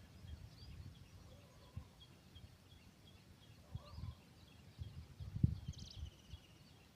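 Faint bird chirps repeating in the background, with one brighter rapid series of notes near the end. Low rumbling thumps come and go, the loudest about five and a half seconds in.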